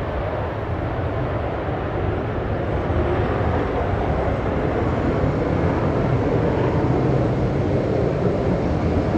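The twin J79 turbojets of a heavily loaded RF-4E Phantom II at takeoff power, a steady rumbling jet noise as the jet lifts off and climbs away, growing slightly louder towards the end.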